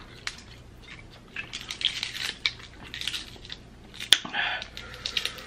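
Snow crab leg shells being cracked and peeled apart by hand: scattered snaps and crackles, with one sharp crack a little after four seconds in.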